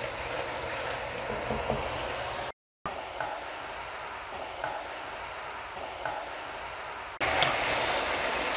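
Oil and sauce sizzling and bubbling in a nonstick wok, with fried pork ribs in the sauce. The sizzle breaks off briefly about two and a half seconds in and grows louder near the end as the ribs are turned in the sauce.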